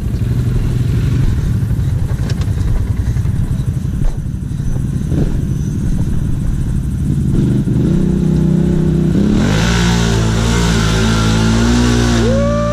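ATV engines running steadily under load, then from about seven seconds in an ATV revving up as it ploughs through a mud hole, with loud splashing of water and mud over the last few seconds.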